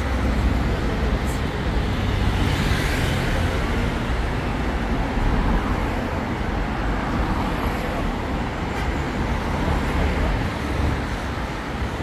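Street traffic: a steady hum of passing cars with a low rumble, and one vehicle passing close about three seconds in.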